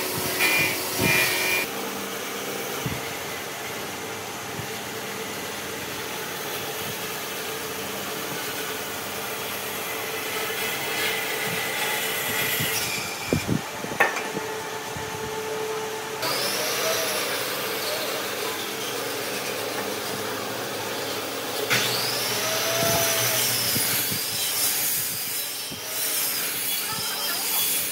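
Steady workshop machine noise runs throughout. About halfway through come a few sharp knocks of wooden blocks being set down, and later a repeating wavering squeal joins in.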